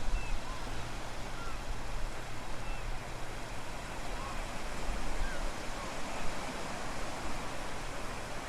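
Strong wind at the seashore, buffeting the microphone with a steady low rumble over the hiss of waves washing in at low tide. Several faint short chirps are scattered through it.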